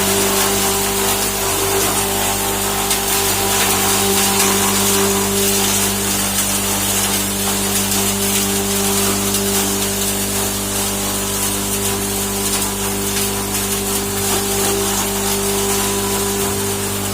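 Homemade patoz fodder chopper running steadily: a constant machine hum with a hiss above it.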